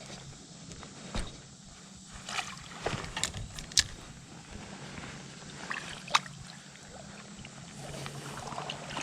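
Creek water sloshing and splashing, with a few sharp splashes or knocks, as a hooked brown trout is played and brought in.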